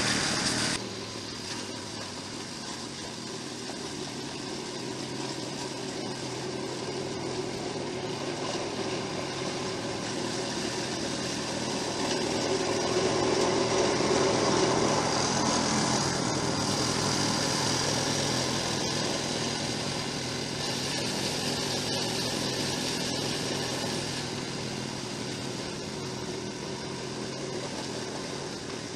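Snowblower's small petrol engine running steadily, growing somewhat louder for a few seconds midway and then easing off.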